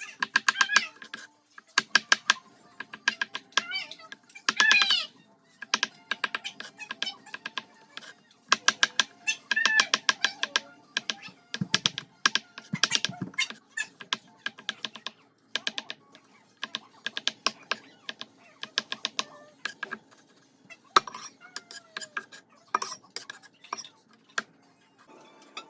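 Rapid runs of light tapping clicks, about ten a second, coming in bursts of a second or two with short pauses between.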